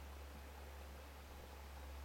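Quiet, still ambience: a faint steady low rumble under a soft hiss, with no distinct sound standing out.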